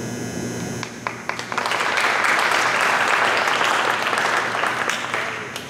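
Audience applauding: a few scattered claps, filling out into steady applause about a second and a half in, then tapering off near the end.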